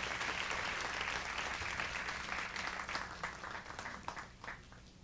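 Live concert audience applauding, thinning out to a few scattered claps and dying away near the end, off a cassette recording of a TV broadcast.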